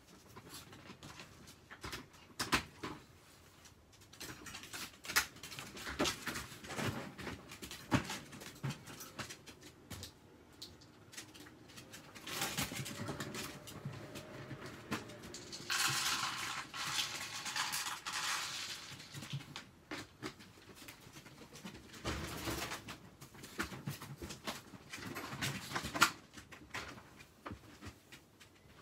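Rustling and crinkling of plastic with scattered clicks and knocks: someone moving about and handling things while kneeling on a plastic tarp. The crinkling is loudest in a stretch of about two seconds past the middle, and a sharp knock comes near the end.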